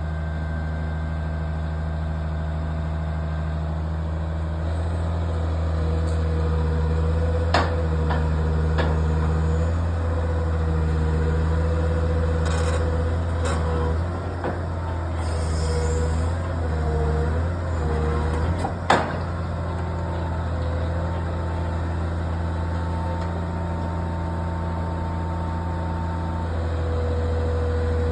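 Caterpillar 345CL high-reach demolition excavator's diesel engine running steadily, with a higher steady whine over it. Through the middle the engine note dips and wavers as it takes load, and a few sharp knocks come through, the loudest about two-thirds of the way in.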